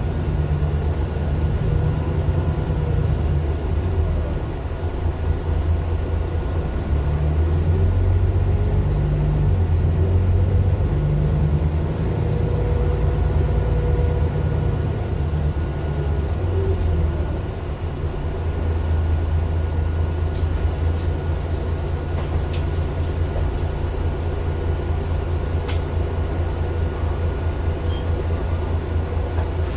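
Mercedes-Benz Citaro LE city bus's Daimler OM 457 hLA straight-six diesel running, a deep rumble that swells and eases as the bus goes, with a thin steady whine above it. A few sharp clicks come in the second half.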